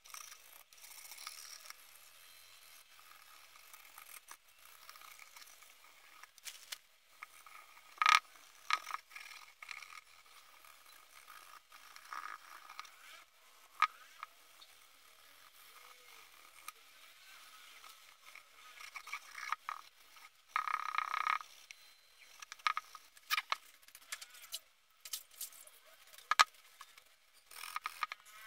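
Rubbing and scraping on an embossed copper lid as it is scrubbed and polished by hand, with scattered light metallic clicks as the lid is handled. The loudest is a sharp click about eight seconds in, and there is a longer scrape around twenty-one seconds.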